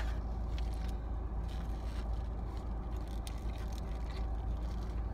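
Steady low rumble of a motor vehicle, with faint scattered scrapes and clicks of a burger and its wrapper being handled.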